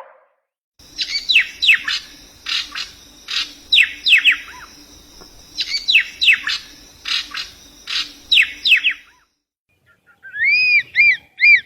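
Bird calls: clusters of quick, high notes that each drop sharply in pitch, mixed with clicks, repeated for about eight seconds. After a short pause, a different run of short, arched chirps comes near the end.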